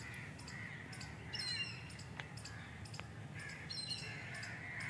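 Faint birdsong from the trees: crows cawing now and then among other birds' chirps.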